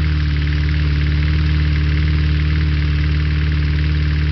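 Combine harvester running steadily: a deep, even diesel engine drone with a fine rattle of machinery above it.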